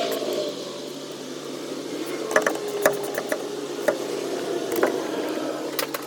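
Sharp clicks and knocks of hand tools and car parts being handled during reassembly, about eight of them scattered through the second half, over a faint steady hum.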